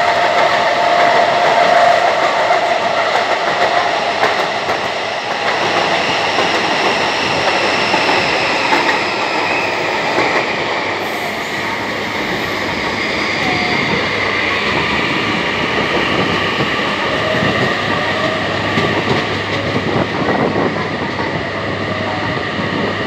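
Mexico City Metro train running on its rails: a steady rumble and rattle of the wheels, with the electric traction motors' whine sliding down in pitch through the middle and rising again later.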